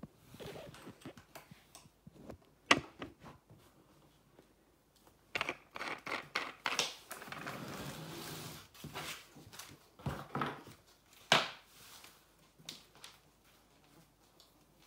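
Parts of a flat-pack baby changing table being handled and fitted: scattered light clicks and taps, a stretch of crinkling plastic packaging about five to nine seconds in, and two sharp knocks, near three seconds and about eleven seconds in.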